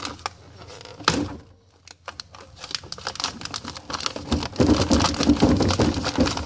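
Handling noise close to the microphone: a knock about a second in, then a busy run of clicks, clatter and crinkling as things are moved and rummaged through.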